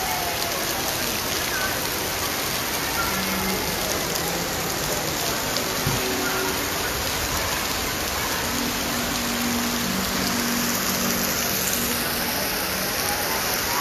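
Rain falling steadily onto wet pavement, a constant dense hiss of drops.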